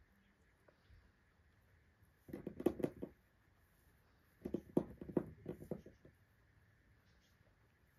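Guinea pigs in loose hay: two short bursts of rapid crackling rustle, about two seconds in and again around the middle.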